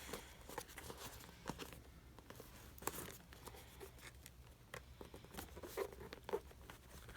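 Ryzen 5 1600 CPU retail packaging being worked open by hand: faint, irregular clicks and short rustles of plastic and cardboard.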